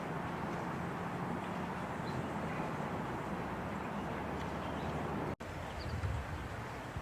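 Steady outdoor background noise with a low hum, broken by a sudden brief silence about five seconds in.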